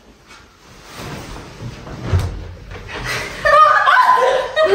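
A dull thump about two seconds in, then loud voices and laughter breaking out from about three and a half seconds in.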